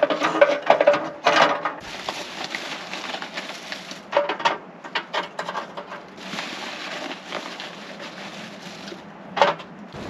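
Objects being handled and knocked together: a run of clattering knocks in the first two seconds, another burst of knocks about four seconds in, and a single loud knock near the end, over a steady hiss.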